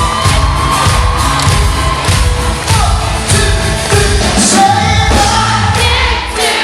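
Live pop-rock band playing loud with a sung melody over a steady drum beat.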